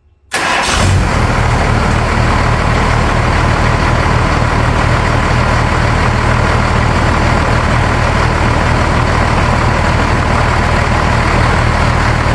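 A 12-valve Cummins 5.9-litre inline-six diesel engine idling steadily, cutting in suddenly just after the start.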